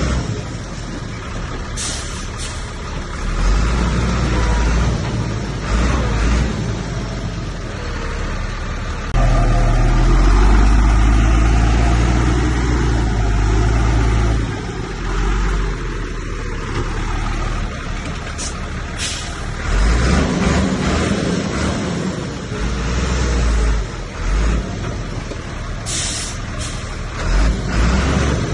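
Heavy diesel machinery running: a bulldozer and dump truck working, with a continuous low engine drone that grows loudest for a few seconds about a third of the way in. Short sharp hisses of air come three times.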